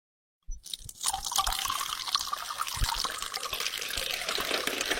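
Bucket of ice water pouring and splashing down, starting suddenly about half a second in and running steadily, a few low thumps in it.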